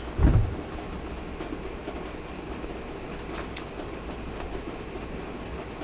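Close chewing with faint scattered clicks over a steady low background hum, and a low thump shortly after the start.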